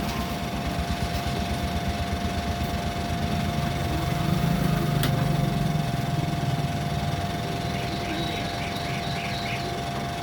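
A steady, fast-pulsing low mechanical drone with a thin constant tone above it. A single sharp click sounds about halfway through.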